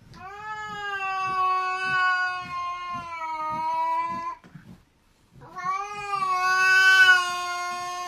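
A grey-and-white cat yowling at another cat in two long, drawn-out calls. The first lasts about four seconds and sinks slightly in pitch. The second starts after a short pause, about five and a half seconds in.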